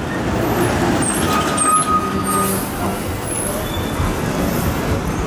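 Street traffic with a large vehicle's engine running close by and steady road noise, with a brief high steady tone about a second in.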